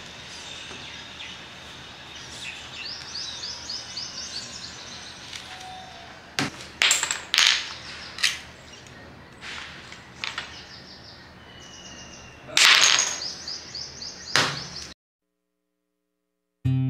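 Stoneware clay being wedged by hand on a board, with a handful of sharp thumps as the lump is pressed and knocked down onto the board, the loudest about two-thirds of the way through. Birds chirp in quick runs in the background, and the sound cuts off near the end.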